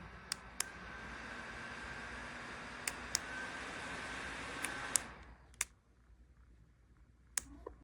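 Small battery neck fan running with a steady whir and a thin whine, with several sharp button clicks. The fan shuts off about five seconds in and its sound dies away, followed by a couple more clicks.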